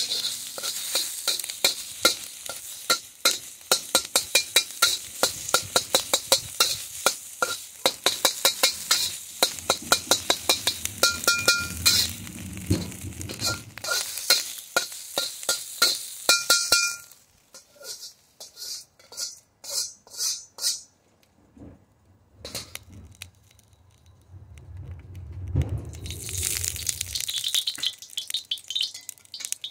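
Metal wok spatula scraping and clacking rapidly against a steel wok as food sizzles, the strokes thinning out and stopping a little past halfway. Near the end a sizzle starts up again, just after a brief low rumble.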